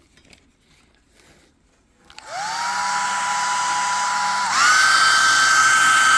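Small heat gun for heat-shrink tubing switched on: its fan motor whines up to speed with a steady blowing rush, starting about two seconds in, then steps up to a higher, louder speed setting about two seconds later.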